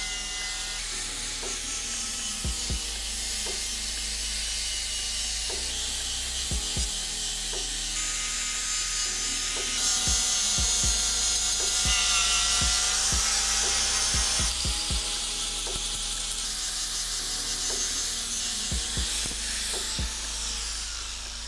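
Angle grinder with an abrasive sanding disc running against the steel-grey body of a vise, grinding off rust with a steady hiss and a motor whine that shifts in pitch as the disc is pressed into the metal. It stops right at the end.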